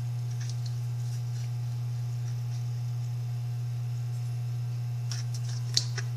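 A steady low hum, one unchanging tone, with a few faint light clicks near the end.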